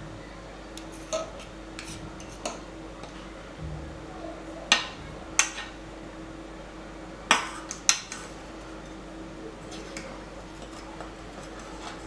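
Metal forks clinking and scraping against a small stainless steel saucepan of melted chocolate as cake pieces are dipped and turned in it: a handful of sharp clinks at irregular intervals.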